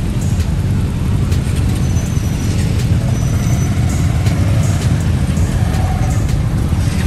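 Many motorcycles idling and riding off one after another, their engines blending into a steady low drone.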